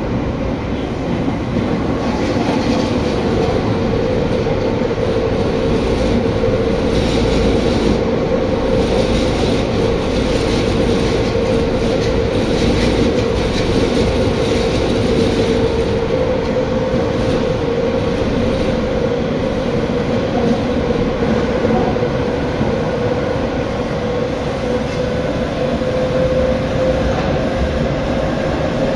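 Tobu 9050 series electric train running, heard from on board: a loud steady rumble of wheels on the rails, with a humming tone from the running gear that rises slightly in pitch near the end.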